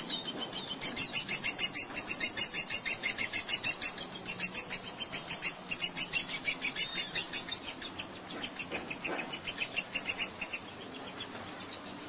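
A bird calling in a rapid, steady series of very high-pitched pulses, about six a second, with a few short chirps from other birds mixed in.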